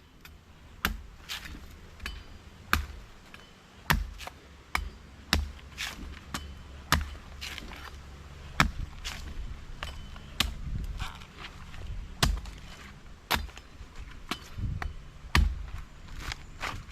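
Repeated sharp chopping strikes of a blade, about twenty in all at an uneven pace of one or two a second, over a low rumble.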